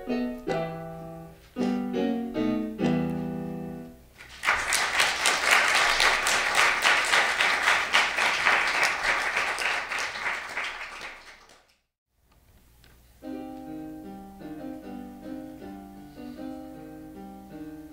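The accompaniment plays the last chords of a sung romance, then an audience applauds for several seconds. After a brief gap, an electronic keyboard plays the introduction to the next song.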